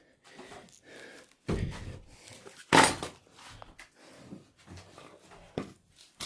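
A few irregular knocks and thuds, the two loudest about one and a half and three seconds in, with fainter clatter between.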